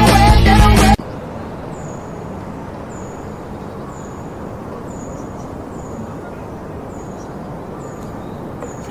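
Rock music cuts off abruptly about a second in. A steady outdoor hiss follows, with a bird giving a short, high, downward-sliding chirp about once a second.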